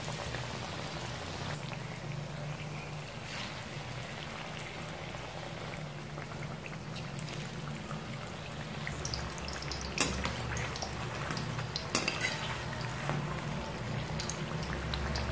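Batter-coated bitter gourd slices deep-frying in hot oil in a kadhai: a steady sizzle with fine crackling. There are a couple of sharp knocks about ten and twelve seconds in.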